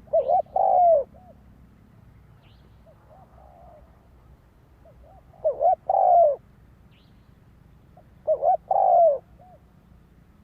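Spotted dove cooing, the Vietnamese decoy 'cu gáy' call used to lure wild doves. Three loud phrases: at the start, about five and a half seconds in, and about eight seconds in. Each phrase is two short coos and a longer one. A fainter, more distant coo comes about three seconds in.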